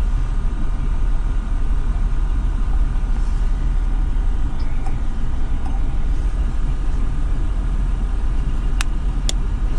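Steady low rumble of a car engine idling, heard from inside the cabin. Two short sharp clicks come near the end.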